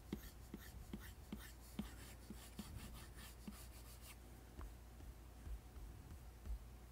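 First-generation Apple Pencil strokes and taps on an iPad Pro screen fitted with a matte screen protector: faint scratchy strokes with light ticks of the tip, about two or three a second, easing off about four seconds in. A few soft low bumps follow.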